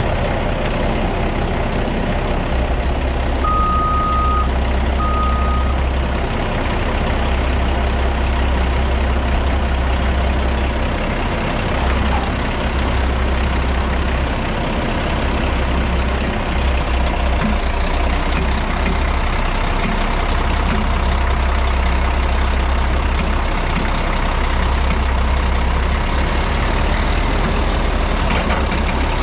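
Heavy diesel earthmoving equipment running steadily under load, with a low throbbing rumble. A backup alarm beeps twice, about four and five seconds in.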